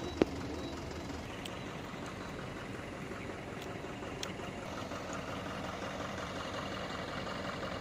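Truck engine running steadily at low revs, with a single sharp click about a quarter of a second in.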